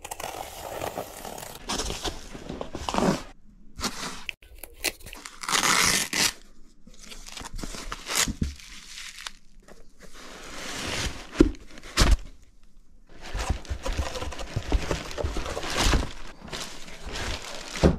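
Cardboard packing box being opened: tape slit and ripped with a utility knife, then foam padding pulled out and plastic wrap crinkling, in repeated rustling bursts. A couple of sharp knocks stand out about two-thirds of the way through.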